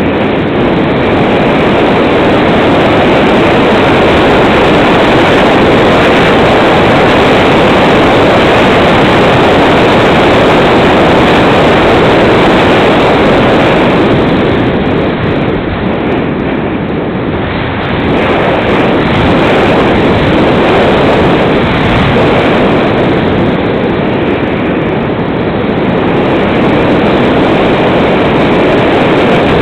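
Loud, steady rush of wind over the microphone of a camera riding on a Multiplex Cularis RC glider in flight. It eases slightly about halfway through and again a few seconds later.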